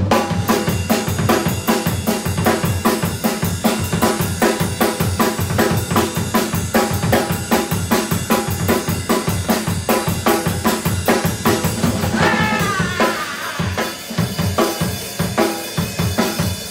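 Up-tempo recorded music with a driving drum-kit beat, kick drum and snare to the fore. About three-quarters of the way in, a falling glide sounds over the beat.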